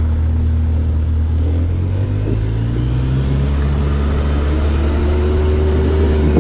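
Quad (ATV) engine running as it comes down a steep dirt hill: a steady low drone, with the engine note rising in pitch about two seconds in and again near the end.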